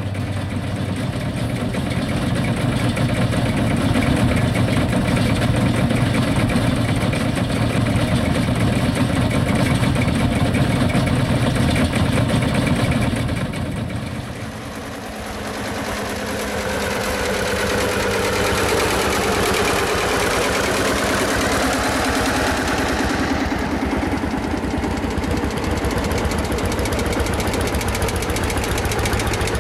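Vintage single-cylinder two-stroke diesel tractor engines running with a steady rhythmic chug. About halfway through the sound dips briefly, then changes to a tractor engine running on the road.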